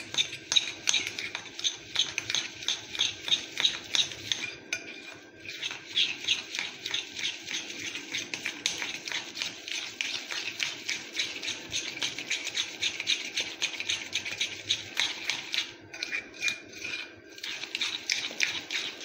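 A spoon beating a thick jaggery, ghee and cream mixture in a glass bowl, scraping and clicking against the glass in quick strokes about three times a second, with two brief pauses.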